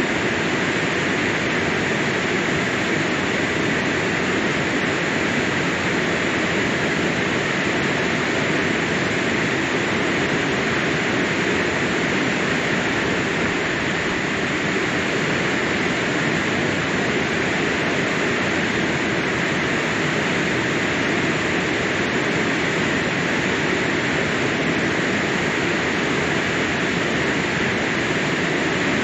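Water rushing steadily over and through a check dam in monsoon flow, a constant roar without breaks.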